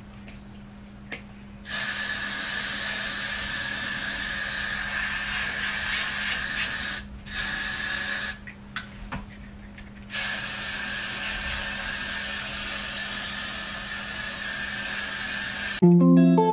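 Aerosol hairspray can spraying in three long hissing bursts with short pauses between them, the longest about five seconds. Guitar music comes in just before the end.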